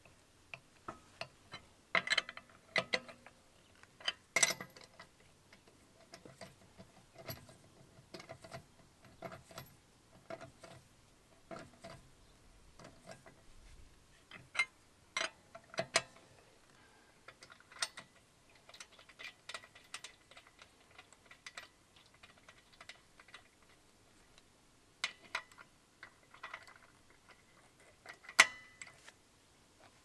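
Steel wheel brace clicking and clinking against the lug nuts as they are fitted and spun onto the studs of an alloy wheel. The taps come at irregular intervals, with the sharpest one near the end.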